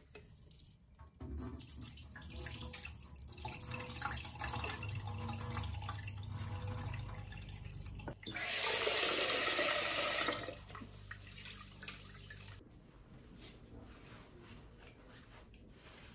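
Water sloshing in a rice cooker's inner pot as rice is rinsed at a stainless steel sink, then the rinse water poured off into the sink: a louder, steady rush of pouring water about eight seconds in that lasts about two seconds.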